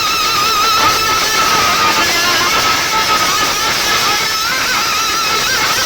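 Loud music played over a big public sound system, a wavering lead melody line over a dense, noisy mix.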